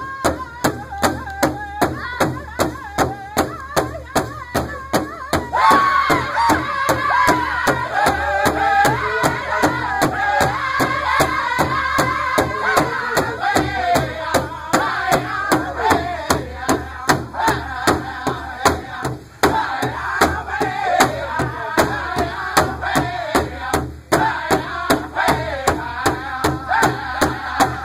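Powwow drum group: several men striking one large hide drum together in a steady beat, a little over two strokes a second, while singing in high voices. The singing grows louder about five and a half seconds in as more voices come in.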